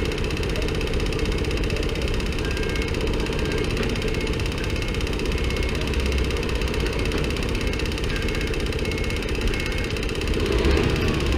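Honda Cub's single-cylinder four-stroke engine running steadily with an abnormal mechanical noise, swelling briefly near the end. The owner suspects the cam chain.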